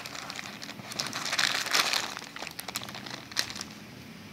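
Clear plastic bags around coiled cables crinkling and crackling as they are handled, densest about a second or two in, with a sharp crackle about three and a half seconds in.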